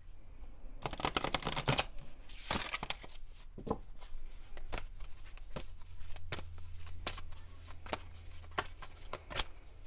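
Oracle cards shuffled by hand: a dense patter of card edges clicking against each other about a second in and again around two and a half seconds, then scattered single card taps and slaps, over a faint low hum.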